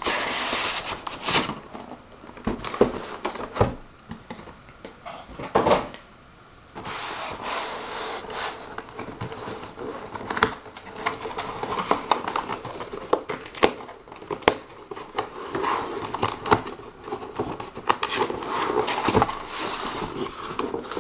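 Cardboard box and plastic wrapping being handled and opened: rustling and crinkling with scattered taps and knocks, briefly quieter about five seconds in before the rustling picks up again.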